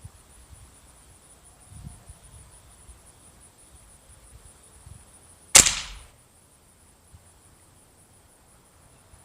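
A single shot from a Benjamin Prowler .177 nitro piston air rifle, about five and a half seconds in: one sharp crack that dies away within half a second.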